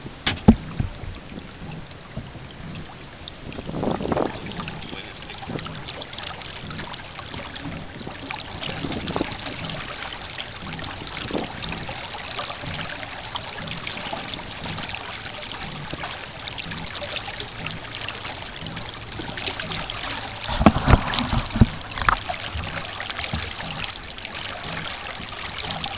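Water trickling and lapping along the hull of a small sailing dinghy under way, with scattered small knocks. A few louder thumps come about four seconds in and again around twenty-one seconds.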